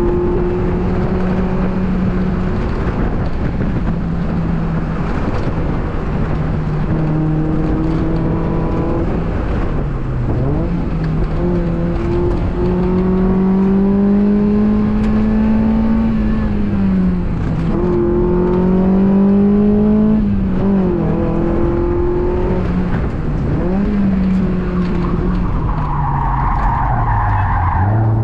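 2002 Mazda Miata's four-cylinder engine under hard driving, its pitch climbing and falling again and again through gear changes. Tires squeal briefly near the end.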